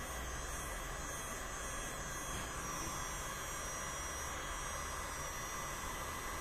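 Heat gun running steadily, a constant rush of air with a hum, reheating a graphics card's GPU chip to restore its solder contacts.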